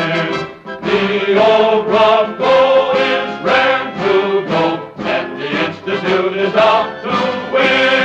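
Orchestral film score with a choir singing a tune in phrases.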